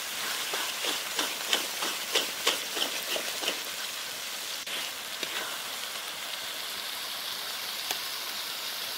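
Spiced onion-and-tomato masala sizzling in hot oil in a pan, with a quick run of scraping strokes, about three a second, of a spoon stirring it during the first few seconds, then a steady sizzle.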